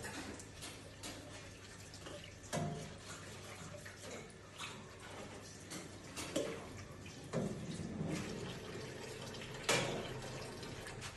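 Water running at a sink, with a few scattered knocks and clinks of dishes being handled during hand dishwashing.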